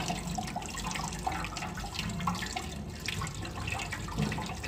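Water splashing and trickling in a stainless steel sink as a raw blue swimming crab is rinsed and cleaned by hand, with many small irregular wet clicks from the shell being handled.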